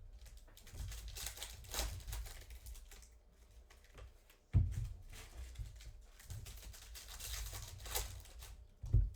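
Trading-card packs and boxes being opened by hand: wrappers tearing and crinkling in bursts, with two dull thumps as things are set down or bumped.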